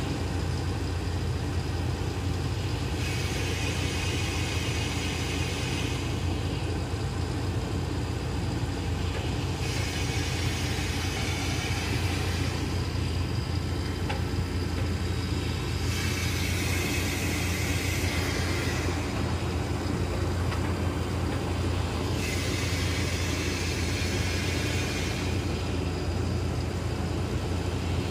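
An engine running steadily at idle, with a hissing, crackling noise that starts and stops in stretches of a few seconds, as an electric arc welder is struck and broken during welding.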